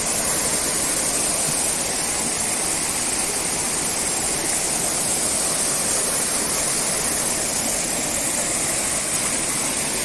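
Small forest waterfall and stream rushing steadily over boulders, a full, forceful flow of white water.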